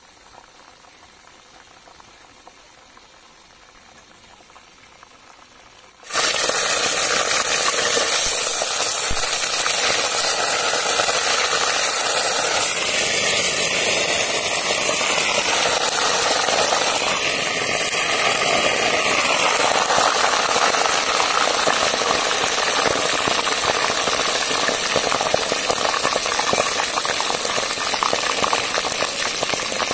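Small river fish deep-frying in hot oil in a metal pot: a loud, steady sizzle that starts abruptly about six seconds in, with only a faint hiss before it.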